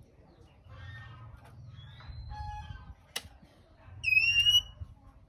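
Male oriental magpie-robin calling: soft scratchy chattering notes, then one loud clear whistled note about four seconds in. A sharp click comes just before the whistle.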